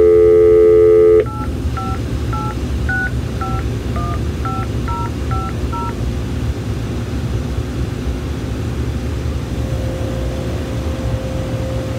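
Telephone dial tone for about a second, cut off by a quick run of about ten touch-tone (DTMF) digits being dialed, heard over a Panasonic KX-TGF570 cordless phone's speakerphone. A steady line hum follows.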